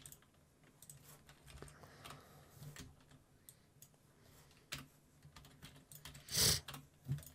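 Faint, irregular keystrokes and clicks on a computer keyboard, with one louder, longer noise about six and a half seconds in.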